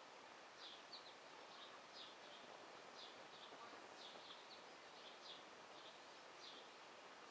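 Faint short, high bird chirps, irregular at about two a second, over a quiet background hiss.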